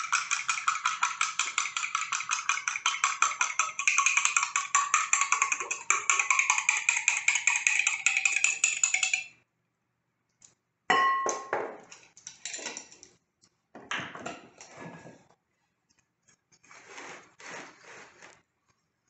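A fork beating an egg into milk in a glass jar: a rapid, steady clinking of the fork against the glass, ringing slightly, that stops suddenly about nine seconds in. Then softer, irregular scrapes and taps as the egg and milk are poured into a ceramic mixing bowl and worked into the flour with the fork.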